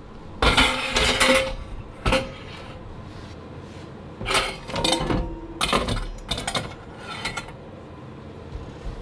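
Stainless steel bowl and metal spoon clattering and clinking as they are handled, in several bursts of knocks with brief ringing: about half a second in, around two seconds, and again from about four to seven and a half seconds.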